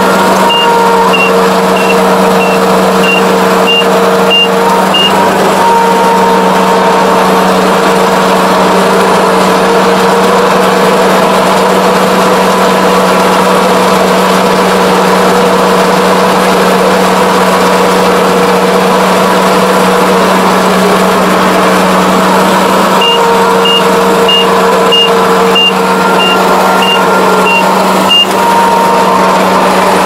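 Kubota ARN460 rice combine's diesel engine and threshing machinery running steadily under load, heard from inside the cab. A cab warning beeper sounds a run of short high beeps, about two a second, for several seconds near the start and again about three-quarters of the way through.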